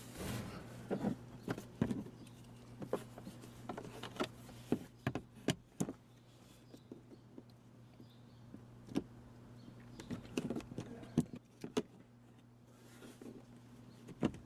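Scattered light clicks, taps and small rattles of hand work on a car's dashboard during a speaker install, over a low steady hum.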